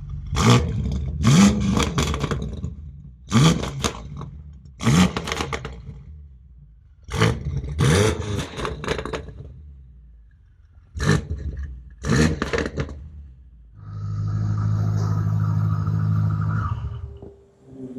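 Impact wrench firing in about ten short bursts, each spinning up with a brief rising whine into hammering, as bolts are worked during a downpipe install on a car. Near the end it runs steadily for about three seconds.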